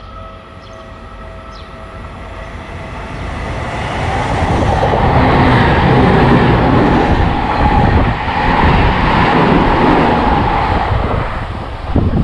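A train passing close by at speed. Its rumble and rail noise build over the first few seconds, stay loud for about seven seconds, then fall away near the end.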